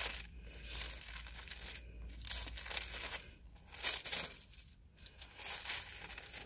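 Bible pages being turned: a run of irregular papery rustles and crinkles as the passage is looked up.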